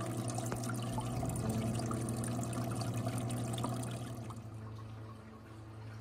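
Water trickling and dripping down a moss-covered waterfall in a small terrarium, over a steady low hum. The trickle grows quieter about four seconds in.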